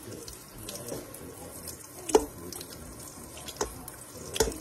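Kitchen tap running a thin stream into a stainless-steel bowl in the sink, with a few sharp knocks as a tumbler and a bottle brush are scrubbed against the bowl; the loudest knock comes about two seconds in.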